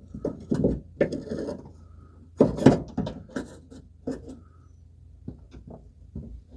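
Irregular clicks, knocks and short scrapes of hand work with tools on plastic push-pin clips of a liftgate, loudest about two and a half seconds in.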